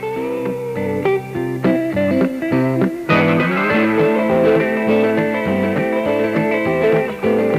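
Background music led by guitar, plucked notes over sustained chords, growing fuller and louder about three seconds in.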